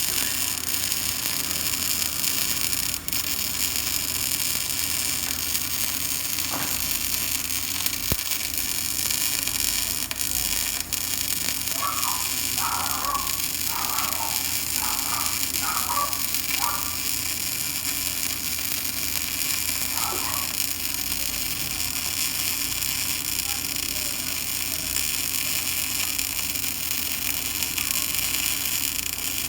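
Steady hiss with a low electrical hum throughout, and faint distant voices briefly about twelve seconds in.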